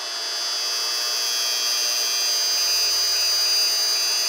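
Induction hot plate at 1,800 watts, powered by a modified sine wave inverter, with a copper-clad frying pan on the coil, giving off a steady high-pitched buzz.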